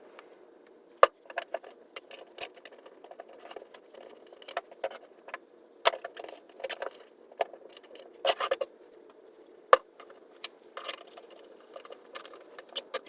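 Irregular clicks, light knocks and small metallic rattles as corner clamps are fitted and tightened on glued wooden trim pieces. Two sharper clicks stand out, about a second in and near ten seconds.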